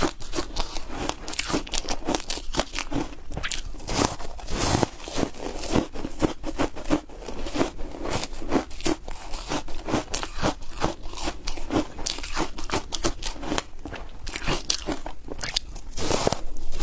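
Close-miked crunching of foam ice being bitten and chewed, a dense run of irregular crisp cracks and crackles.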